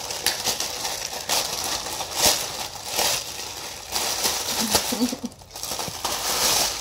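Plastic postal mailer bag rustling and crinkling in irregular bursts as it is pulled open by hand, then the clear plastic wrap of the item inside crackling as it is drawn out.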